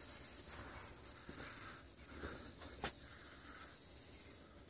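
Faint outdoor ambience: crickets trilling, a steady high thin tone, with soft scuffing sounds repeating every half second or so and a single sharp click about halfway through.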